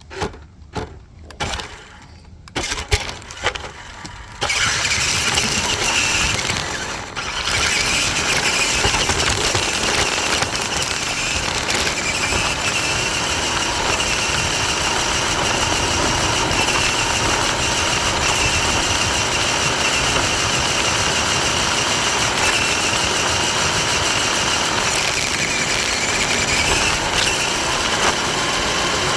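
A few knocks and clicks of handling, then, about four seconds in, a toy RC truck's small electric motor and gearbox start up and run steadily with a high whine and rattling noise as the truck drives, heard from a camera taped onto the truck.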